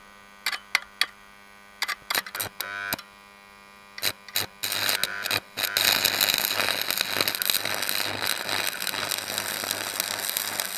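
AC stick-welding arc from an old transformer buzz box welder: a few sharp crackles as the electrode is scratched to strike, then about four and a half seconds in the arc catches and keeps up a steady crackling hiss over a mains-frequency buzz until it is broken off at the end. The welder is running with the current turned up because a warm terminal bolt is losing voltage, which the owner blames for it not welding very nicely.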